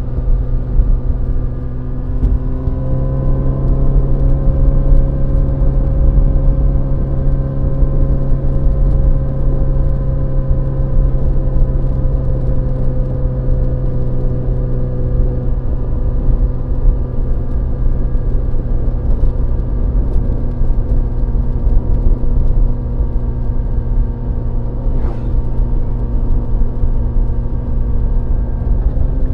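Honda CBR1000RR SP's inline-four engine running at a steady, fairly constant pitch. It lifts slightly a couple of seconds in and eases down gradually over the second half.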